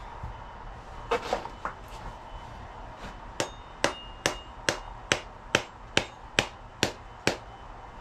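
Hammer blows on the top end of a cherry axe handle held head-down, driving the handle into the eye to seat the axe head. A few knocks about a second in, then a steady run of ten sharp strikes, about two a second.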